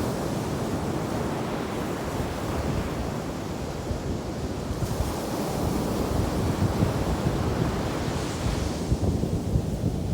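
Ocean surf washing onto a beach, with wind buffeting the microphone. A wave's hiss swells about halfway through and fades near the end.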